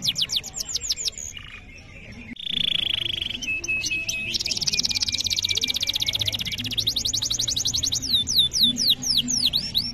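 Canary singing a long song made of fast rolls of repeated falling whistled sweeps. It quiets briefly about a second in, then runs into a steady high trill and a very fast, dense trill lasting a couple of seconds, before the falling sweeps return near the end.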